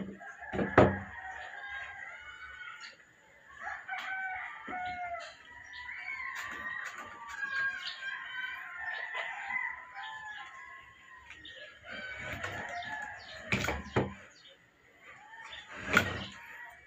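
Chickens clucking and a rooster crowing throughout, with a few sharp knocks from hand tools being driven into a block of tire rubber: one about a second in, a quick pair later, and one near the end.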